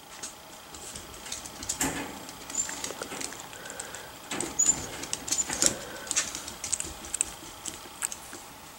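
Four-week-old Miniature Schnauzer puppies scuffling over each other and mouthing plush toys: irregular scratchy rustles and soft knocks, with a few very brief high squeaks and faint low grunts.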